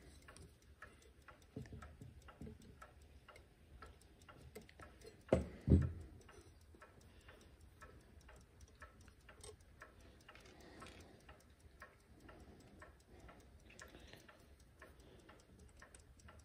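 A Chelsea ship's strike clock with a jeweled platform escapement ticking quickly and evenly. Two louder knocks come about five and six seconds in as the clock is handled.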